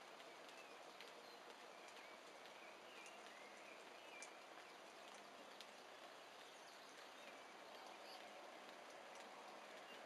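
Faint scratching and scattered small clicks of dogs digging and nosing in loose soil, with a few faint bird chirps over a quiet outdoor hiss.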